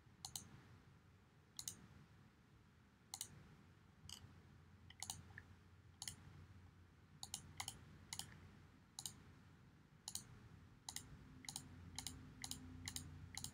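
Faint, scattered clicks of a computer mouse button, some in quick pairs like double-clicks, while folders are opened one after another. A faint low hum comes in near the end.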